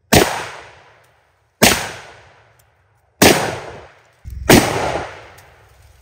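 Four rifle shots from an M1 Garand firing .30-06 in steady semi-automatic fire, about a second and a half apart, each followed by a rolling echo that dies away.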